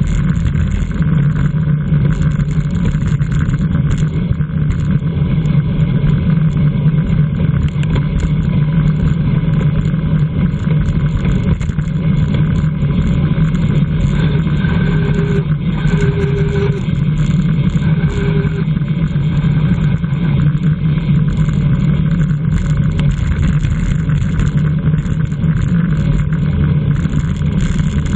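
Loud, steady rush of wind and road noise with a low hum, typical of a bicycle racing at speed with wind on the microphone. Three short beeps about a second apart come near the middle.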